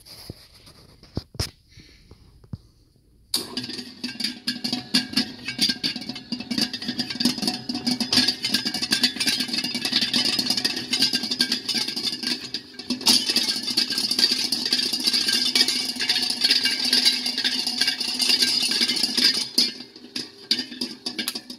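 Hobart AE200 planetary mixer switched on a few seconds in, running with a dense rattling gear noise over a steady hum. There is a sharp clunk with a brief dip about halfway through, and the machine stops near the end.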